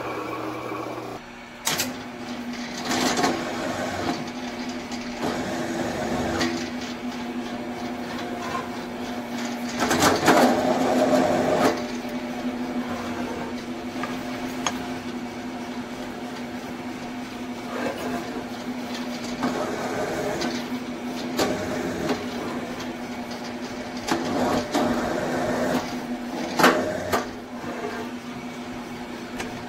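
Drill press running steadily with a countersink bit, with bursts of cutting, scraping and clicking as it countersinks the holes in a steel vise jaw and chips are brushed away.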